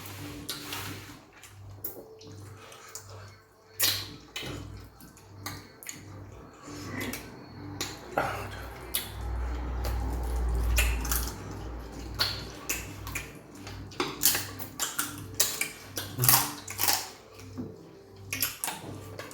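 Eating peanut soup and fufu: irregular sharp clicks and clinks of dishes, with wet soup and mouth sounds in between.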